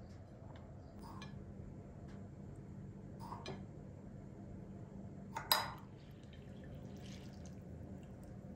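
Water splashing and dripping in a large bowl of rice being washed by hand, with a few small splashes, the loudest about five and a half seconds in, over a faint low hum.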